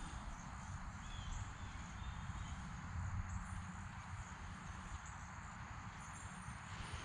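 Faint outdoor ambience: a steady high trill of insects, with a few short chirps, over a low uneven rumble.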